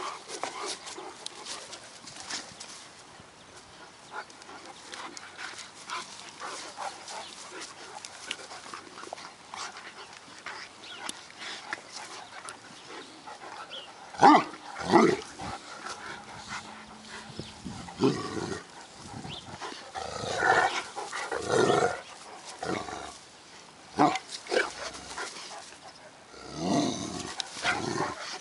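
Great Danes play-fighting, a puppy wrestling with older dogs. The first half is mostly quiet scuffling. From about halfway, short barks and play noises come several times.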